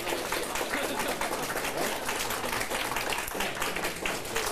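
Crowd applauding steadily, many hands clapping together to welcome a guest of honour.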